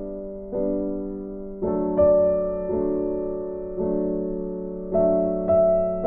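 Background music: slow, gentle piano chords, each struck about once a second and left to fade.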